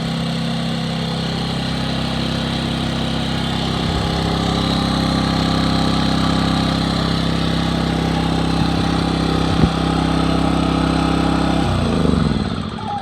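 iPower SUA2000 2200-watt portable generator running steadily while powering a 5,000 BTU window air conditioner, with a single click nearly ten seconds in. Near the end the engine is shut off and its note falls as it winds down.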